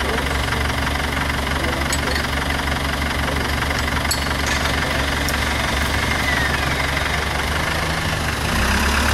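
Modified off-road 4x4's engine idling steadily, growing a little louder near the end.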